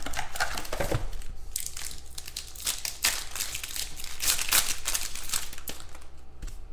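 Foil trading-card pack wrappers crinkling as the packs are handled and torn open, with cards shuffled out between them. The noise comes in dense, irregular crackles and rustles.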